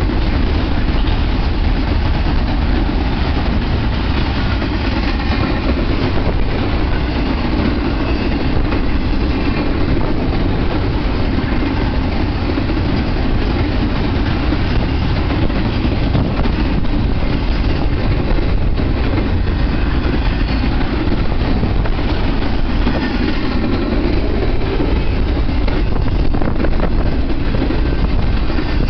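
Double-stack intermodal freight train's container well cars rolling past: a steady, loud rumble of steel wheels on the rails.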